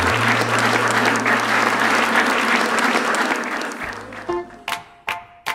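A crowd of guests applauding, a dense even clapping that fades out about four seconds in, with soft background music under it. Near the end a new piece of music starts with a run of evenly spaced notes, about two or three a second.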